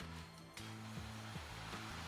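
Background music with a bass line stepping between steady low notes.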